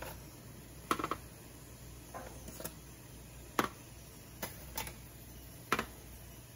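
Kitchen tongs clicking and tapping as steamed puto in their cups are lifted out of a stainless steamer and set down on a metal baking tray: about half a dozen sharp clicks, roughly a second apart, over a low steady hum.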